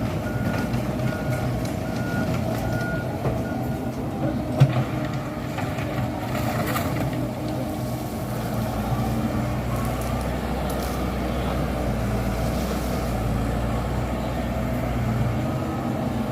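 Komatsu PC78 excavator's diesel engine running steadily under work, with its travel alarm beeping evenly for the first four seconds or so. A single sharp knock sounds about four and a half seconds in.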